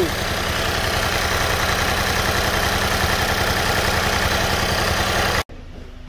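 2012 Mini Cooper's four-cylinder engine idling steadily, cutting off suddenly near the end.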